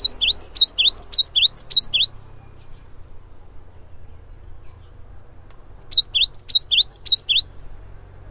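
Cinereous tit (gelatik batu) singing. Two bursts of rapid, high notes, each note sliding downward, at about five notes a second. Each burst lasts about two seconds, with a pause of nearly four seconds between them.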